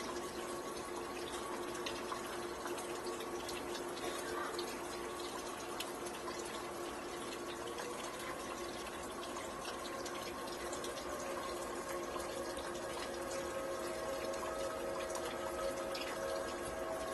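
Distant outdoor warning sirens sounding, several steady tones held together over a steady hiss; one of the tones grows louder near the end.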